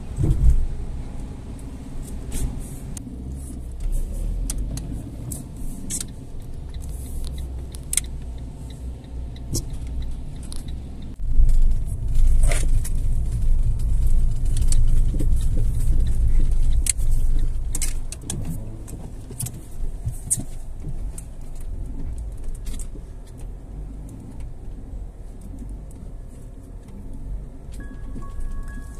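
Car driving on wet roads, heard from inside the cabin: a low road rumble with scattered sharp clicks and rattles. About eleven seconds in, the rumble grows much louder as the car runs onto a cobblestone street.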